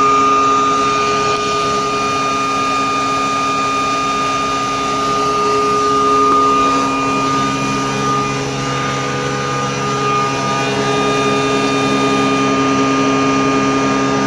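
Stainless steel hammer-and-fluted-disc pulverizer mill running at speed with a steady high whine while dry granular material is fed into its hopper and ground.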